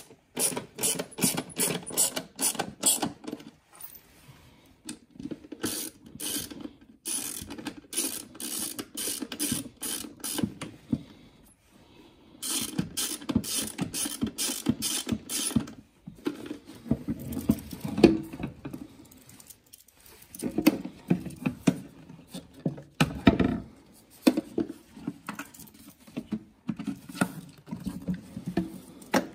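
Hand ratchet clicking in quick runs with short pauses between, as screws are driven back into the engine air filter housing.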